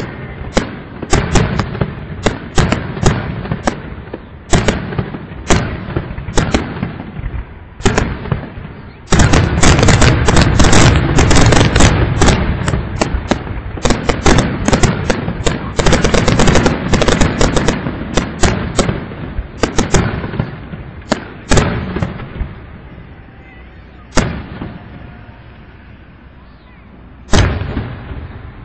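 Fireworks grand finale: a quick run of sharp booms that turns into a dense, nearly continuous barrage of bangs about nine seconds in, then thins out to scattered booms, with one last big bang near the end.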